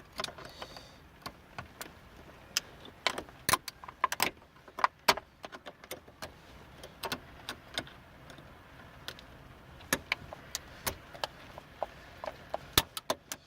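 Pliers and a screwdriver clicking and scraping on the steel clip ring behind the lock plate of a 1998 GMC Jimmy's steering column as it is pried off: irregular sharp metal clicks, some in quick clusters.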